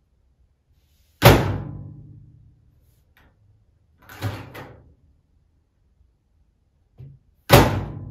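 Microwave oven door being opened and shut by hand. It slams shut loudly about a second in and again near the end, each slam leaving a ringing decay. Between the slams, a lighter double clunk as the latch releases and the door swings open.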